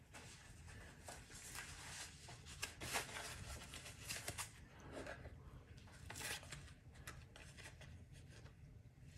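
Faint, irregular rustling and scraping with a few soft clicks: gloved hands handling small plastic parts of a camera battery holder.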